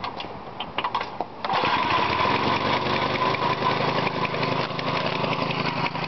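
A few knocks, then about a second and a half in a small Briggs & Stratton single-cylinder mower engine starts and runs steadily.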